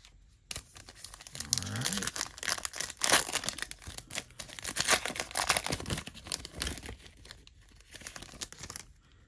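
Foil wrapper of a Panini Phoenix basketball card pack crinkling and tearing as it is ripped open by hand, a dense crackling run that is loudest in the middle and dies away near the end.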